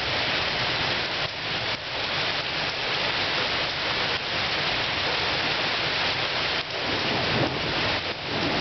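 Heavy rain pouring down steadily on leaves, grass and pavement, a dense even hiss that dips briefly a few times.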